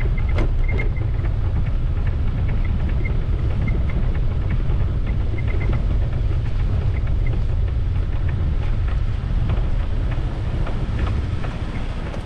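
Wind buffeting the microphone with road rumble from a bike rolling over a concrete road, as a loud, steady low roar.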